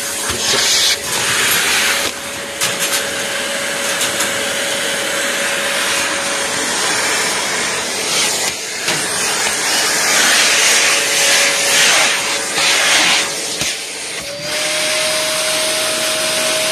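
Vacuum cleaner running: a rushing, suction-like noise with a steady motor whine. The whine steps up a little in pitch near the end.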